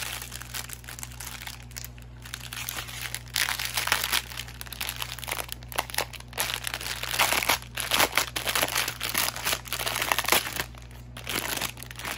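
Clear plastic packaging bag of a diamond painting tool kit crinkling as it is handled, heavier from about three seconds in and thinning out near the end.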